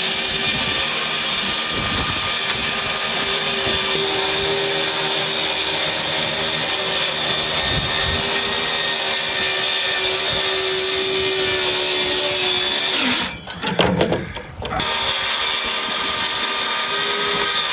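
A power tool running loudly at a steady pitch. About thirteen seconds in, it winds down and stops for a second or so, then starts up again and keeps running.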